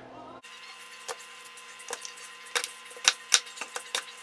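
Kitchen knife cutting red potatoes on a plastic cutting board: a run of irregular sharp knocks as the blade strikes the board, loudest a little after three seconds in.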